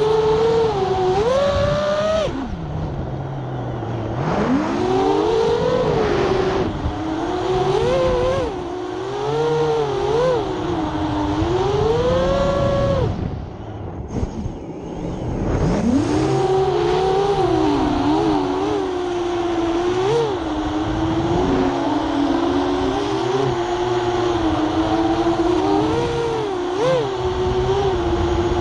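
FPV freestyle quadcopter on an 8-inch frame, its brushless motors spinning 7-inch HQ 7040 three-blade props: a buzzing whine that rises and falls in pitch with the throttle. It drops away twice, a few seconds in and again about halfway, as the throttle is cut, then surges back up.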